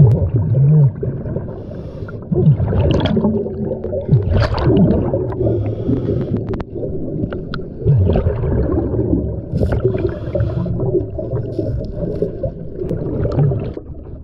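Scuba diver's breathing heard underwater: bubbles gurgling and rumbling from the regulator, with a hiss coming back every three or four seconds, and water noise against the camera.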